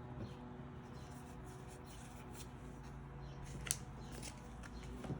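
Faint rustling and light clicks of trading cards and packaging being handled, with one sharper click about two-thirds of the way through, over a low steady room hum.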